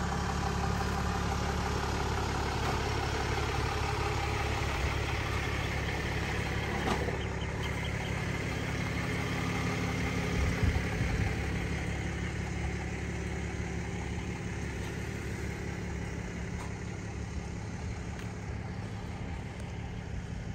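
Ram dually pickup's engine idling steadily, growing gradually fainter toward the end.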